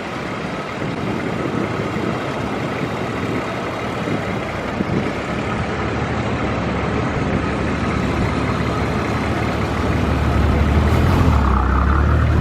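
Four-wheel-drive vehicle's engine running under a wash of wind and tyre noise. About ten seconds in, a steady low engine hum becomes louder and dominant.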